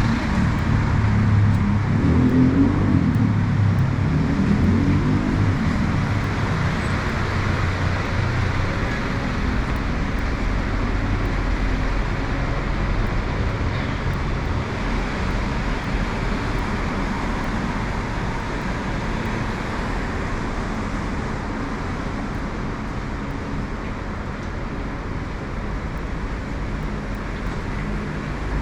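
Road traffic noise on a city street: a steady wash of passing vehicles, with a nearer vehicle's low engine rumble in the first few seconds that fades away.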